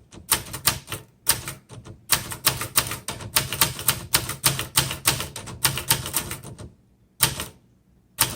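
Typebars of a 1972 Webster XL-747 manual portable typewriter striking the platen in a steady run of keystrokes, about four a second, typed slowly so the machine can keep up. After a pause near the end, two single strikes follow.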